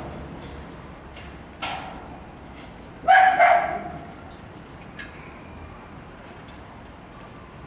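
A dog barking once, loudly, about three seconds in, with a sharp click shortly before it.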